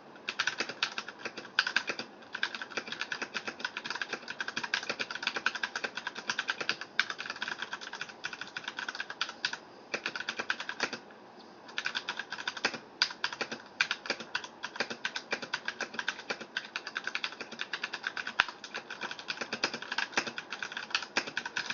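Fast, continuous typing on a Filco mechanical keyboard with Cherry MX Brown switches (tactile, non-clicky), a quick patter of key strikes broken by a few short pauses, the longest about halfway through.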